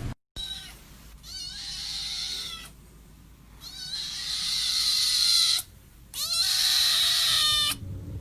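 A domestic cat giving three long, drawn-out meows one after another, each opening with a short rise in pitch.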